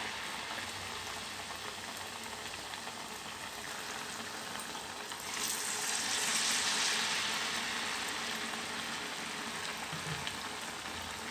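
Banana fritter in maida-and-rice-flour batter deep-frying in hot oil, a steady bubbling sizzle. The sizzle swells louder about five seconds in, then slowly eases.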